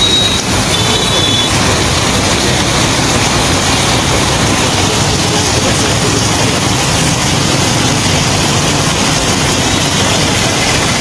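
Loud, steady rushing noise of fast-flowing floodwater and heavy rain across a flooded street.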